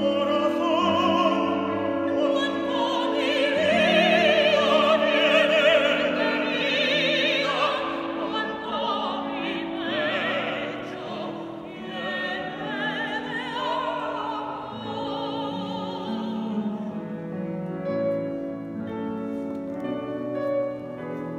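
Soprano and baritone singing a slow classical duet with strong vibrato, accompanied by a grand piano. The voices swell loudest a few seconds in and ease off near the end.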